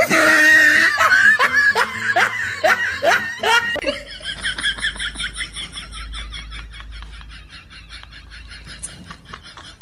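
A person laughing: loud bursts of laughter for the first few seconds, then a long run of quicker, fainter giggling that fades away.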